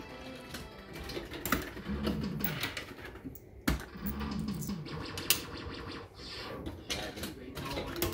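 Maygay 'Great Escape' fruit machine in play: its reels spin and click to a stop, with sharp clicks and a short electronic jingle that sounds twice.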